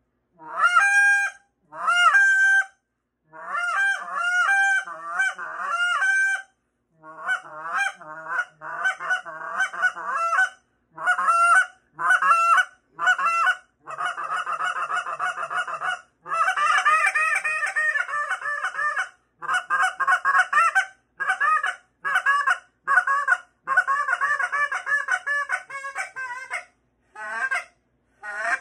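Foster Calls Workhorse goose call blown by hand, sounding a sequence of Canada goose honks and clucks. Each note breaks sharply upward in pitch. It opens with two separate honks, then moves into runs of quick clucks and longer stretches of fast rolling chatter, with short pauses between runs.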